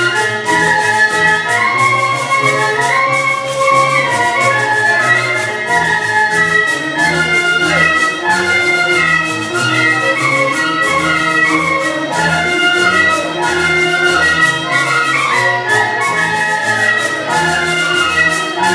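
Traditional Andean dance music for the pastoras dance, with wind instruments carrying the melody over a steady beat.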